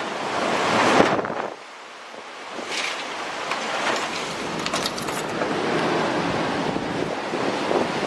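Hurricane-force wind on the back side of the storm, after the eye has passed, blowing hard and buffeting the microphone. A strong gust peaks about a second in, eases briefly, then the wind builds again and blows steadily.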